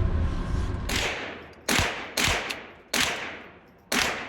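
A string of 9mm pistol shots, about five in all, fired at an uneven pace of half a second to a second apart, each ringing off before the next.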